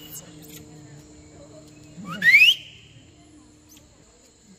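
A single loud whistle rising steeply in pitch, about half a second long, about two seconds in, over a steady high-pitched drone of insects and a faint low hum.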